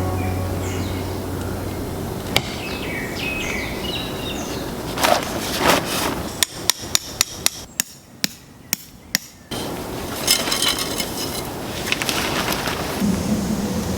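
A hammer striking tent pegs into the ground during tent pitching: a quick run of about nine sharp knocks, about six seconds in.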